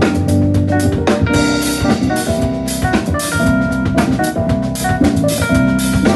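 Live instrumental band of electronic keyboard, drum kit and electric bass playing a groove, with steady drum and cymbal strokes under bass notes and keyboard chords.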